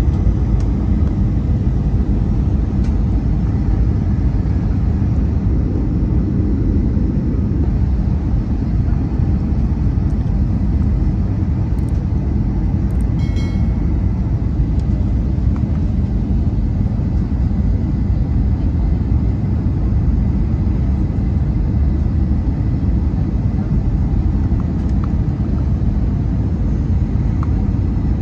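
Airbus A319 cabin noise heard from a passenger seat: a steady low rumble of the engines and airflow.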